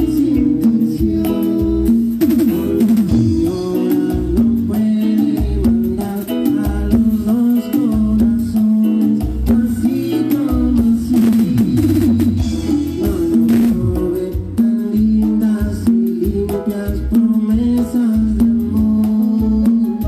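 A live cumbia band playing through the stage PA: steady drum kit beat, electric bass and sustained keyboard or guitar notes, with some singing mixed in.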